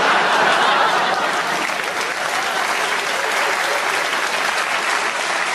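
Audience applauding steadily, strongest at the start and easing off slightly.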